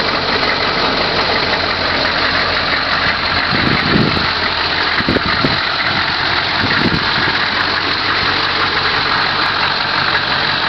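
1988 GMC Vandura's 6.2-litre (379 cu in) V8 diesel idling steadily shortly after a cold start. A few dull thumps come between about four and seven seconds in.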